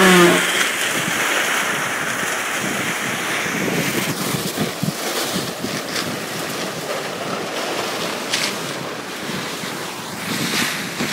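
Steady rushing noise of wet concrete being pumped from the pump hose into an insulating concrete form wall, with a few brief knocks.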